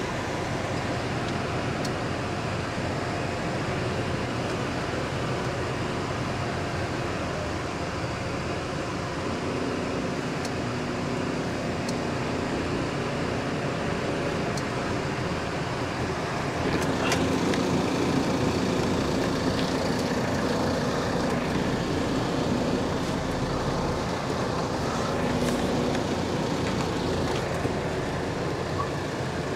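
Lorry engine running with road traffic noise, heard from inside the cab. About halfway through it gets louder and a low engine note comes up.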